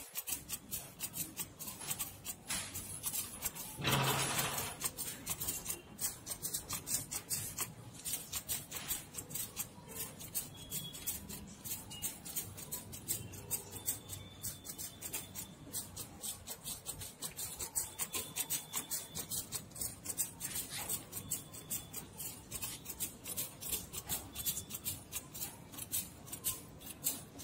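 Hand-held trigger spray bottle squirting fungicide onto a tree's bare roots: a long run of quick, evenly repeated squirts, with one louder, longer burst about four seconds in.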